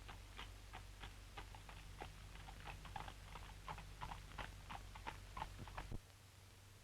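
A rapid, irregular series of sharp clicks or taps, a few each second, over a low steady hum on an old optical soundtrack; it stops abruptly about six seconds in.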